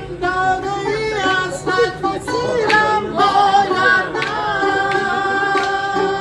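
Music: a voice singing wavering, ornamented phrases, then holding one long note from about four seconds in, over a steady beat.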